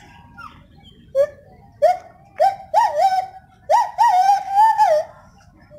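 Gibbon calling: a run of rising hoots that grow longer and more wavering, the last a long warbling note that stops about five seconds in.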